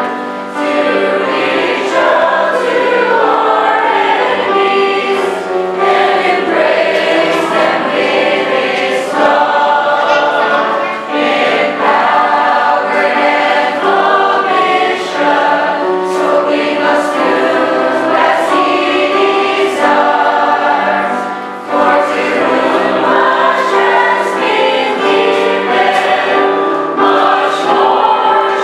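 Mixed choir of men and women singing a gospel song, several voice parts held together in sustained notes.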